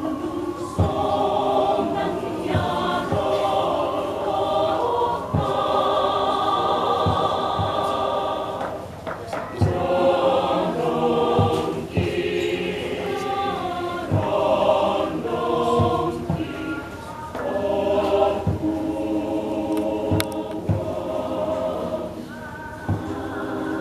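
Women's church choir singing in several parts, in sustained phrases with short breaks between them.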